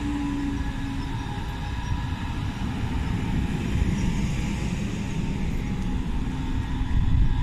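S-Bahn Köln electric multiple unit moving past close by: a steady low rumble of wheels on the rails with a faint steady whine. The end car goes by near the end.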